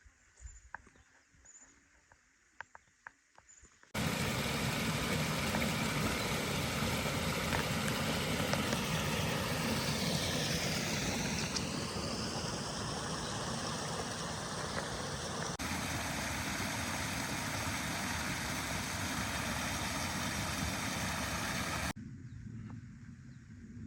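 Loud steady rush of rain-fed runoff water pouring down, starting suddenly about four seconds in and stopping abruptly near the end, after a few faint ticks and chirps.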